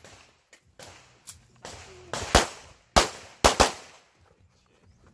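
A string of handgun shots fired during a practical pistol stage. There are a few fainter cracks in the first two seconds, then four loud shots, the last two in quick succession.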